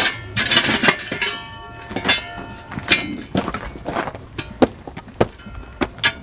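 Hand work on a stove being set in place: a short scrape, then a brief metallic ring, then a run of irregular sharp taps and knocks.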